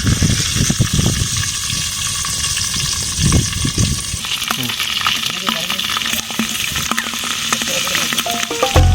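Food frying with a steady sizzle that grows louder about four seconds in.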